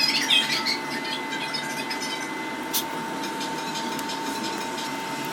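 Small repair tools clicking and scraping against a phone's parts, busy in the first second, with one sharp click about three seconds in, over a steady high hum.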